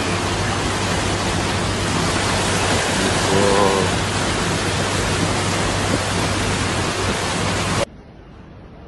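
Floodwater rushing in a fast torrent across a road: a loud, steady rush of water. Near the end it cuts off suddenly to a much quieter hiss.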